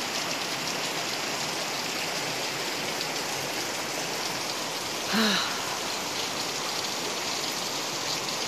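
Water dripping and trickling from a rock overhang into a pool, a steady rain-like patter, with a short vocal sound falling in pitch about five seconds in.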